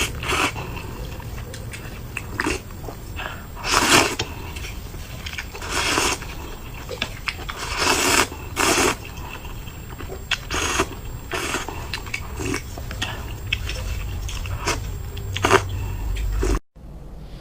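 A person eating close to the microphone: chewing, with a short, louder mouth sound every second or two. The sound cuts out abruptly near the end.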